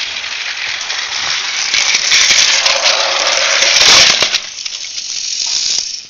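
Battery-powered toy train's small motor and plastic gears running close by, a loud, fast rattling buzz that eases off in the last couple of seconds and cuts out near the end.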